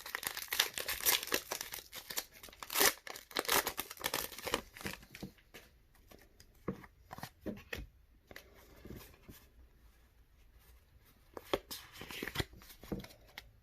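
Foil booster-pack wrapper being torn open and crinkled: dense crackling for the first few seconds, then scattered crinkles with a quiet stretch before a few more near the end.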